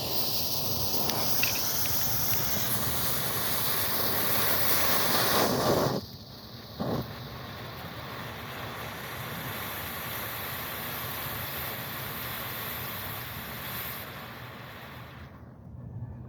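Two smoke balls hissing as they burn and pour out smoke. The hiss is loudest for about the first six seconds, drops suddenly with one short spurt just after, then carries on steadier before dying away near the end.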